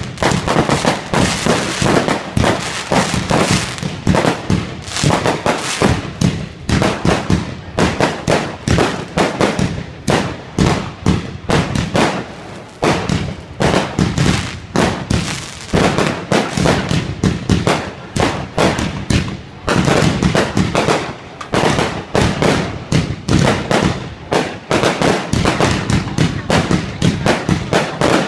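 Fireworks display: aerial shells bursting overhead in a rapid, continuous string of bangs and crackles, several a second.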